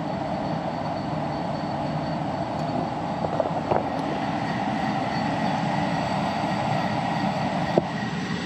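Newly installed 5-ton HVAC system running, heard at the indoor unit: the steady rush of the direct-drive blower moving air, with a faint steady high tone over it. A couple of light clicks.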